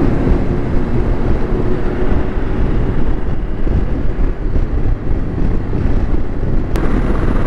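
Steady wind and engine noise of a Honda CB500X motorcycle riding at highway speed, with wind rushing over the microphone.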